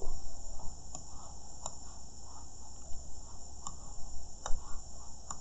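About half a dozen sharp computer mouse clicks, spaced irregularly, the loudest about four and a half seconds in, over a steady high-pitched whine.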